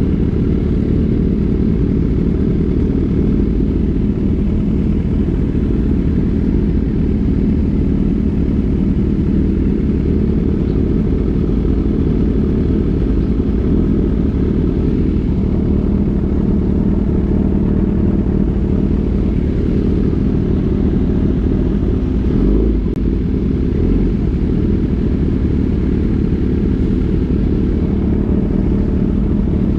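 Kawasaki Ninja ZX-10R's inline-four engine running steadily, with a brief rise in pitch about three quarters of the way through.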